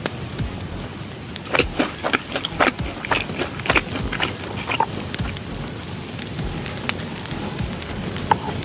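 Campfire crackling over a steady low background, with a quick run of sharp pops in the first half and a single pop near the end.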